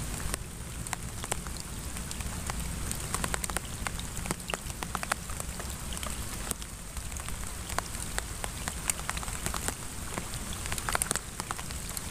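Rain falling, with many separate drops ticking close by at an irregular pace over a low, steady rumble.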